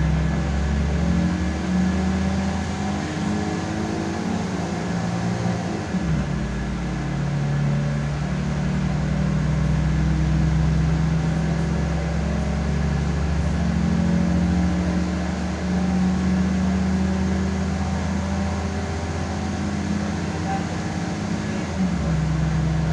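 Diesel railcar running under power while pulling away from a station, its engine drone heard from on board with a steady low hum. The engine note drops about six seconds in and changes again near the end, like gear changes.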